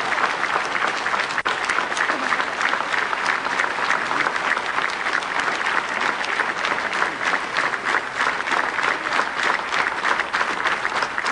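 Theatre audience applauding at the end of the performance, many hands clapping densely and steadily, with the claps falling into a fairly even rhythm.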